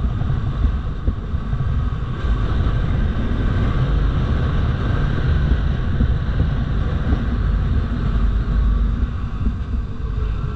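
Bajaj Pulsar RS200's single-cylinder engine running steadily as the motorcycle rides along, mixed with wind rumble on the microphone.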